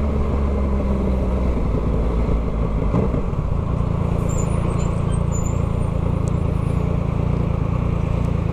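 Yamaha MT-09's 890 cc crossplane three-cylinder engine running under way through an Atalla full 3x1 straight-pipe exhaust. The steady note changes about three seconds in.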